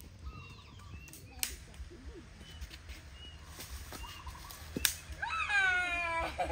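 A fowl giving one long drawn-out call near the end, over scattered short chirps of small birds, with a couple of sharp clicks earlier on.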